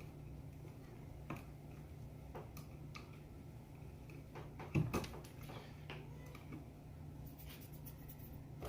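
Faint scattered clicks and taps of hand tools working on household outlet wiring, with one louder knock about five seconds in and a quick run of fine ticks near the end, over a steady low hum.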